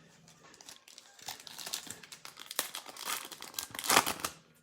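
Plastic wrapper of a pack of NFL trading cards crinkling and tearing as it is opened by hand, in a run of irregular crackles, loudest about four seconds in.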